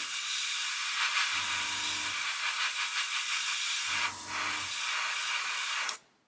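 Airbrush spraying thinned paint: a steady hiss of air and paint from the nozzle, with a faint low hum that comes and goes every couple of seconds underneath. The hiss cuts off suddenly near the end.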